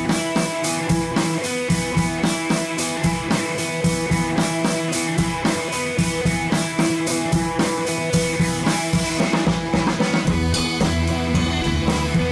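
Background rock music with a steady drum beat and sustained instrumental notes; a heavier bass comes in near the end.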